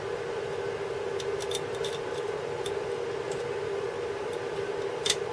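Light metallic clicks and scrapes of tweezers and a soldering-iron tip working at a surface-mount electrolytic capacitor on a corroded circuit board. There are a few small clicks in the first half and one sharper click near the end, over a steady background hum.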